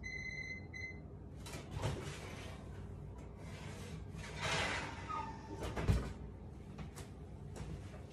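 Oven control panel beeping twice at the start, then the handling of the oven door and pan: a few knocks, a short rush of noise, and the loudest knock about six seconds in.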